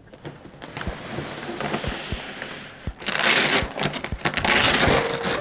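Rustling and crinkling of a plastic insulated grocery delivery bag as hands handle it and pull open its flap, louder from about three seconds in.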